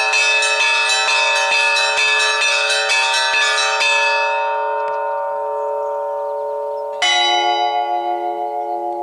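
Russian Orthodox church bells: quick strokes on the small bells stop about four seconds in and ring out. About seven seconds in, one stroke of a deeper bell rings on and slowly fades.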